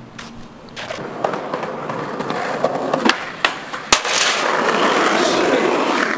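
Skateboard wheels rolling on concrete, with several clacks of the board and one sharp loud smack about four seconds in, after which the wheels roll on louder.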